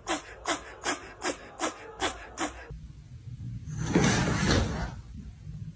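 A hairless kitten mewing in a rapid, even string of short squeaky mews, about two and a half a second, which stops abruptly about three seconds in. Then a second-long burst of scuffling noise, the loudest sound, as a cat leaps down from a chair among kittens.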